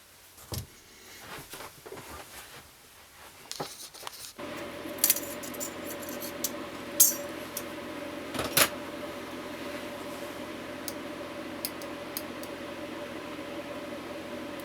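Small metal parts clinking and rattling as they are handled. About four seconds in, a machine starts and runs with a steady hum, with a few sharp clicks over it.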